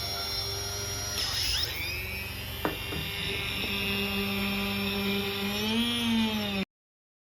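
Homemade cordless drill with a brushless motor running at high speed, a steady whine with a brief dip in pitch about a second in and a sharp click a little later. The pitch rises slightly near the end before the sound cuts off abruptly.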